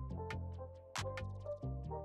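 Background music with a beat: deep bass notes under short melodic notes, with a sharp percussion hit about once a second.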